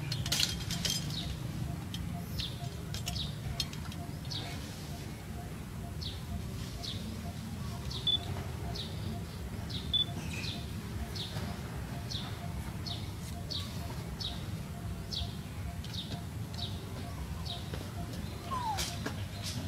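Short, high-pitched falling chirps repeating about twice a second, often in pairs, with two brief sharp peeps in the middle, over a steady low hum.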